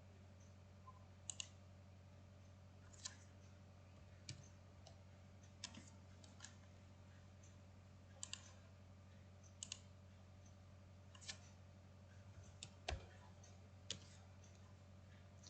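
Computer mouse button clicking while drafting: single clicks and quick double clicks every second or two, over a faint steady low electrical hum.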